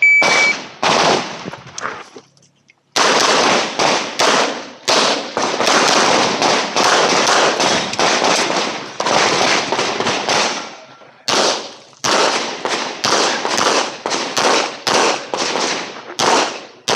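A shot timer beeps once to start, then a handgun fires fast strings of shots, several a second. There is a short pause about two seconds in, and the shooting carries on in quick strings, each broken by brief gaps.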